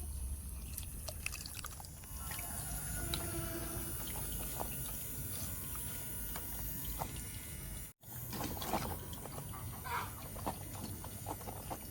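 Water trickling and dripping, with scattered small clicks. The sound drops out briefly about eight seconds in, then the trickling goes on.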